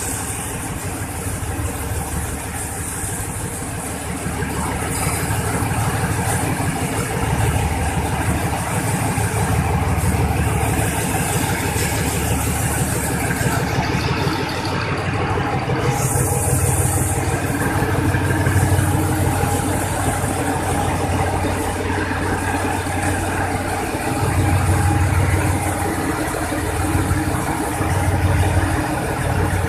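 SRT diesel locomotive 4033 running steadily as it hauls a passenger train past, an even engine drone over the low rumble of the moving train.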